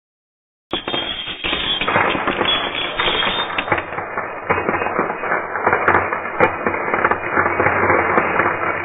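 Many coins pouring and clinking together in a dense, continuous metallic clatter, starting abruptly after a moment of silence less than a second in.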